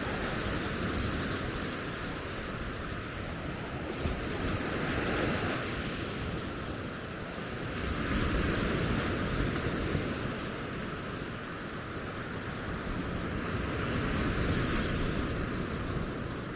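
Sea waves breaking and washing up a sandy beach, the surf swelling and fading every few seconds, with some wind rumbling on the microphone.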